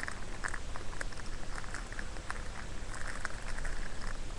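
Soft rustling and irregular light clicking from squishy toys and their ball-chain keychain straps being handled right at the microphone.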